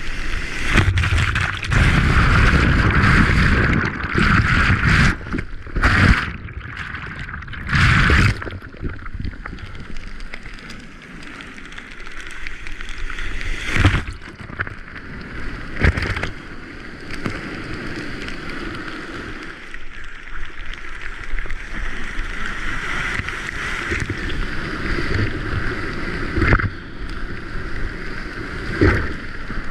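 Ocean surf and water rushing and sloshing around a Big EZ kayak in breaking waves, loudest in the first few seconds, with sharp splashes every few seconds.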